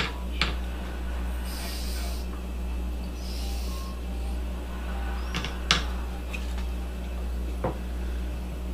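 A sharp knife cutting chilled fudge in a glass baking dish: several sharp clicks as the blade knocks against the glass, and two short swishes, over a steady low hum.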